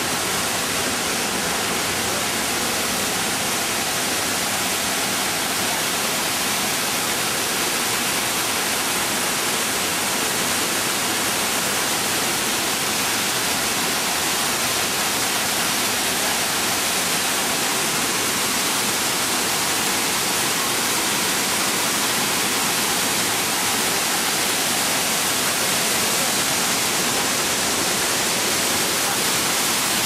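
Waterfall pouring onto rocks: a steady, even rushing of water, a little louder near the end.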